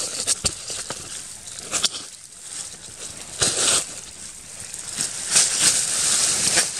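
Sleeping-bag fabric rustling and crinkling as a person shifts and slides over in it, in several bursts, the longest near the end.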